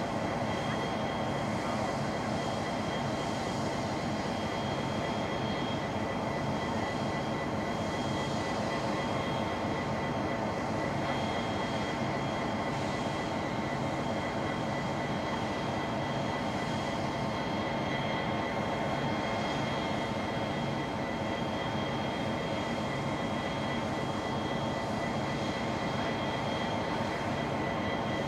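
Two diesel-electric locomotives, a G class and an 81 class, idling steadily at the head of a stationary grain train. The steady running hum holds several level tones throughout.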